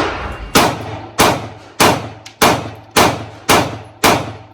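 Rapid string of gunshots, about eight evenly spaced shots a little over half a second apart, each trailing off in a ringing echo.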